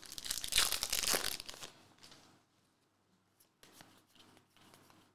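A foil trading-card pack wrapper crinkling and tearing as it is ripped open, for about the first two seconds. After that there are only a few faint ticks as the cards are handled.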